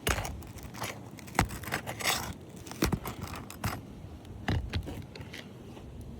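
Roofing snake prying under asphalt shingles to work them loose, with irregular sharp clicks and scrapes of the metal tool against the shingles.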